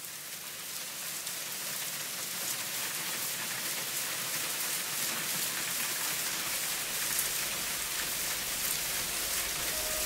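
Steady rain falling, a hiss of many drops with scattered sharper taps. It fades in over the first couple of seconds, then holds even.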